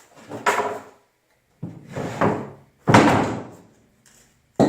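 A series of four heavy thuds and knocks about a second apart, each dying away quickly, the last one sharp.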